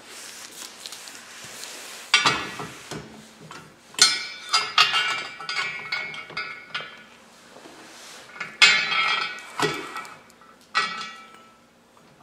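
Small steel mounting brackets and bolts clinking and clattering as they are handled, a run of sharp metallic clinks with a short ring about four to seven seconds in and again near nine seconds.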